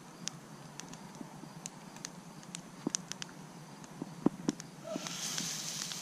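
Birch and cedar wood fire crackling under a grill, with scattered sharp pops and clicks. A steady hiss rises about five seconds in.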